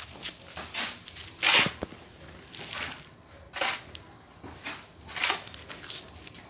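Footsteps scuffing on gritty concrete and gravel: short scrapes about once a second, with louder ones every couple of seconds.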